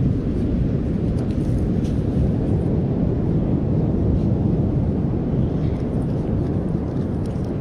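Steady low rumble of wind buffeting the microphone and surf on the beach, with a few faint clicks.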